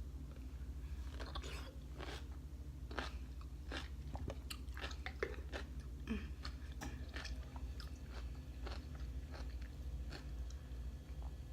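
A person chewing and crunching pickles close to the microphone, with irregular crisp crunches, over a steady low hum.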